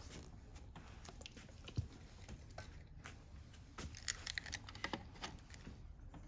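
Faint, scattered clicks and crackles of close hand work on the wire splice of a Shark vacuum hose, as flux is applied for soldering, growing denser about four to five seconds in.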